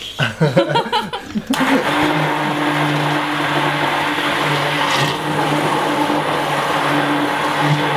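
Hand-held immersion (stick) blender running steadily, blending sauce in a jug, with a constant motor hum. It starts about one and a half seconds in, after a few voices.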